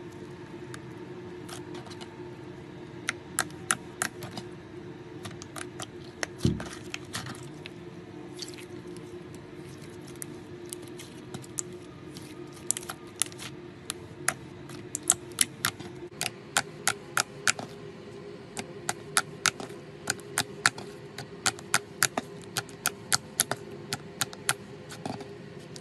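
Slime being pressed, poked and kneaded by fingers, giving many sharp clicks and pops. They come singly at first and in quick runs later on, over a faint steady hum.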